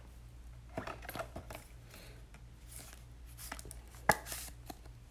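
Scattered light taps and clicks of trading cards and card holders being handled on a table, with one sharper knock about four seconds in, over a faint steady low hum.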